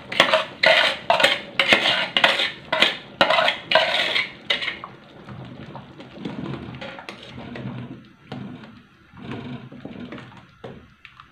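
Metal utensils scraping in a stainless steel cooking pot: about ten sharp scraping strokes, roughly two a second, for the first five seconds, then quieter stirring of the thick liquid with a metal ladle.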